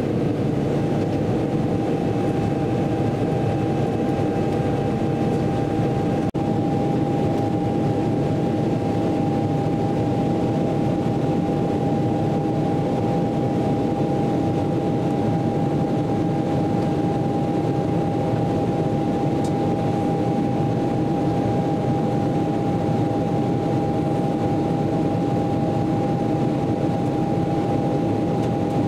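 Steady cabin roar of a Boeing 777-300ER in its climb, heard from inside the cabin: its GE90 engines and rushing air, with one steady hum-like tone running through it. The sound drops out for a moment about six seconds in.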